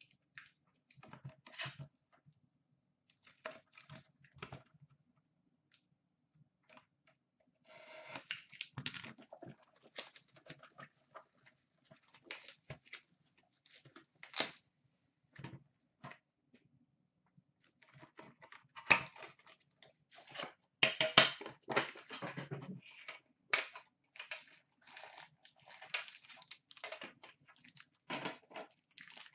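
A hockey card box and its foil pack being opened by hand: short, irregular crinkling, rustling and tearing of foil wrapper and cardboard, sparse at first and busiest and loudest about two-thirds of the way through.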